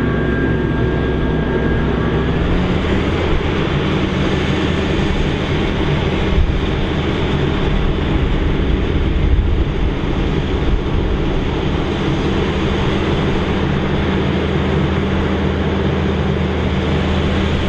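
John Deere self-propelled forage harvester chopping standing corn: a loud, steady engine hum under the rushing noise of crop going through the header and chopper. The engine pitch steps up slightly a couple of seconds in.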